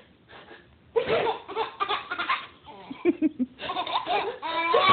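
A baby laughing in a string of giggles and belly laughs, starting about a second in.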